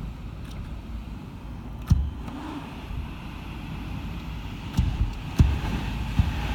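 Typhoon wind blowing hard and buffeting the microphone, with a steady low rumble and hiss. Three sharp thumps of gusts hit, one about two seconds in and two close together near the end.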